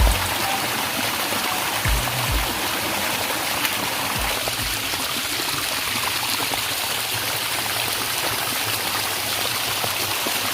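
Steady rushing of water from a small waterfall, with a few low thumps at the start and about two seconds in.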